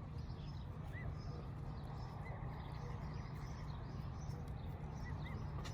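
Birds chirping a few short, arched chirps at intervals over a steady low rumble.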